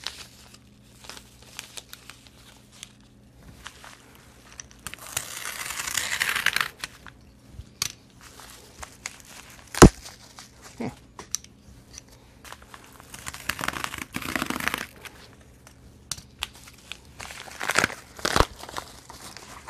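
Padded mailing envelope being opened by hand: crinkling and tearing of the envelope in several bursts, with one sharp click about ten seconds in.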